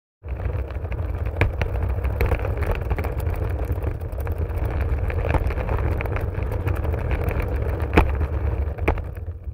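Trolley wheels rolling steadily, a low rumble with a few sharp clicks and knocks along the way, fading out at the end.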